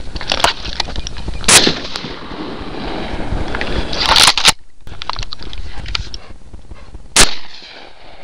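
Shotgun fired about four times over several seconds during duck pass shooting, two of the shots close together about four seconds in.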